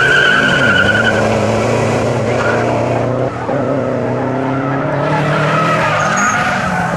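Car engine revving hard with its tyres squealing on the pavement. There is a high squeal in the first second and another near the end, as the engine's pitch rises and falls.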